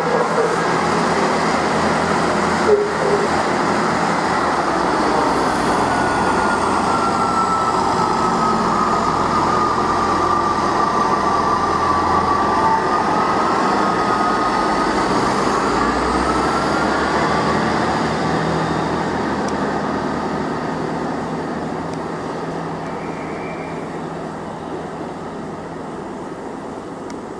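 Class 158 Express Sprinter diesel multiple units running past, with a steady diesel engine and wheel-on-rail rumble. A whining note dips and then rises again in the middle. The sound fades gradually after about 18 seconds.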